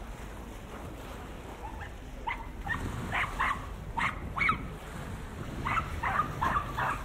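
A dog barking in a run of about a dozen short, high yaps that start about two seconds in, over a steady low background rumble.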